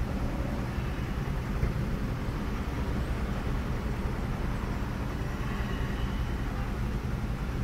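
Steady low engine rumble of vehicles idling in traffic, heard from inside a car's cabin.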